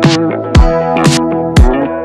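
Background music with an electronic beat: a deep kick drum that drops in pitch hits about once a second, under held chords.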